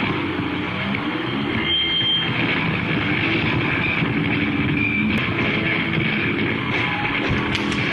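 Loud, dense wash of distorted live rock band noise, electric guitar and drums on stage, with no clear tune. Brief high steady tones ring over it twice.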